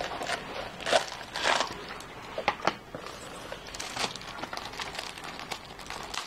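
Rustling and crinkling of packaging and a small plastic media-player box being handled, with a few short knocks and clicks scattered through the first four seconds.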